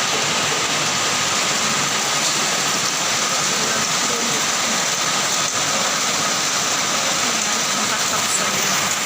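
Heavy rain falling: a steady, dense hiss that does not let up.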